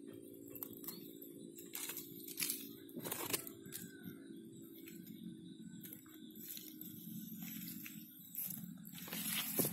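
Scattered rustling and crackling from close hand handling, with louder crackles about three seconds in and near the end, over a steady low hum.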